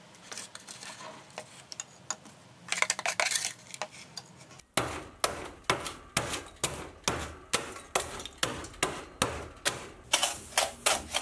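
A spoon scraping and clicking in a plastic tub of charcoal and sodium carbonate. Then, about halfway through, lumps of charcoal are crushed in a saucepan with steady pounding strokes, about two to three a second, to make the carburising mix for case hardening.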